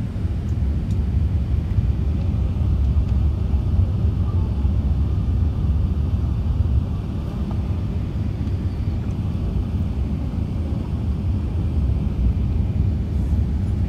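Airliner cabin noise: a steady low rumble of engines and airflow heard from inside the cabin as the plane lands and taxis.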